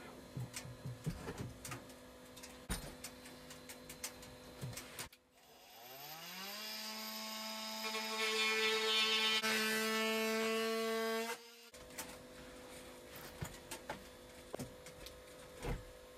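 A handheld power tool spins up with a quickly rising whine, runs steadily for about six seconds while cutting notches into wood, then stops abruptly. Light scattered clicks and ticks come before and after it.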